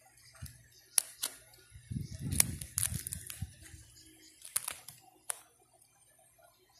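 Clear plastic coin-album pages crinkling and clicking under fingers handling the coins in their pockets: a string of sharp clicks about a second in, a cluster with low rumbling handling noise from about two to three seconds, and a few more near five seconds.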